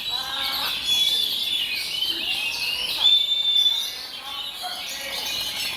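Several oriental magpie-robins (kacer) singing at once in a dense chorus of overlapping whistles, trills and chattering phrases, with one long steady whistle about three seconds in.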